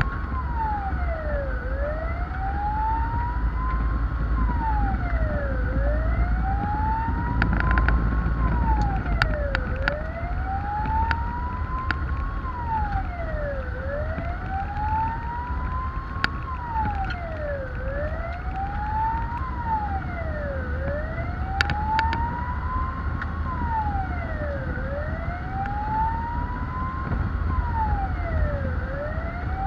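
Fire engine siren wailing, heard from inside the cab over the truck's engine rumble. Each cycle climbs slowly for about three seconds and drops back in about a second, repeating steadily. A fainter, higher siren sounds alongside it, with a few sharp clicks.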